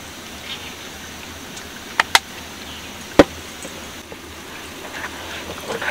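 Steady rush of flowing river water, with three sharp knocks: a quick pair about two seconds in and a louder single knock about a second later.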